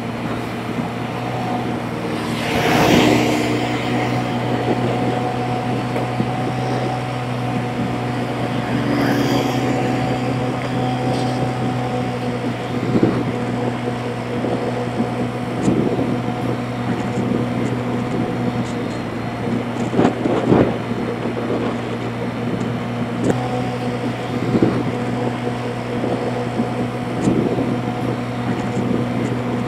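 Motorbike engine running steadily at cruising speed, heard close up from a camera mounted on the bike, with a steady hum and road and wind noise. A few brief louder swells of noise come and go.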